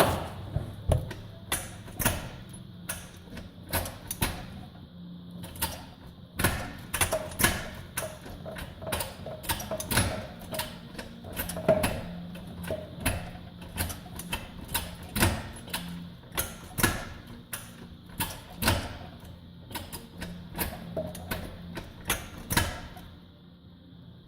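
Short shifter in a 1986–1989 Honda Accord being worked through the gears, giving repeated sharp mechanical clicks and clunks about one or two a second, stopping shortly before the end.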